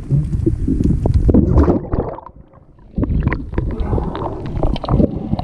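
Water rushing and gurgling over a submerged camera, with many small crackles and knocks from a swimmer's movement. It drops away for under a second about two seconds in, then comes back as splashing and sloshing as the camera reaches the surface.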